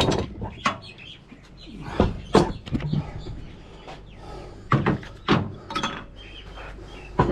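Several sharp knocks and thumps of wooden slabs being handled and set down, with birds chirping.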